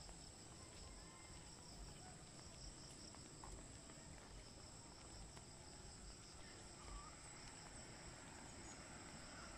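Faint, steady, high-pitched chirring of insects, with a low background hiss.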